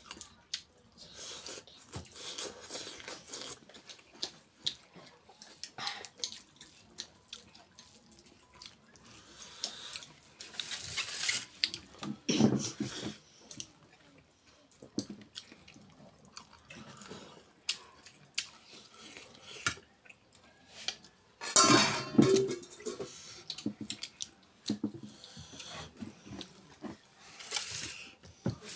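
Close-up eating sounds: a person chewing and smacking on chicken and rice, with many small clicks as fingers scoop rice in a metal bowl. There are a couple of louder mouthfuls about 11 and 22 seconds in.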